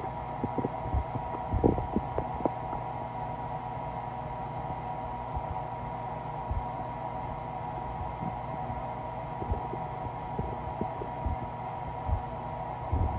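Stomach growling from an empty stomach, heard close up: irregular low gurgles and pops, busier in the first few seconds, over a steady hum.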